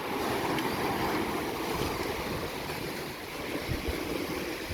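Sea surf washing steadily on the shore, swelling at the start, with wind gusting on the microphone.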